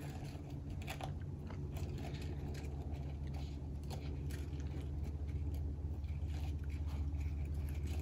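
Faint crunching and rustling of flower stems and foliage being pushed into wet floral foam, as a stem that won't stay put is worked back in, over a steady low room hum.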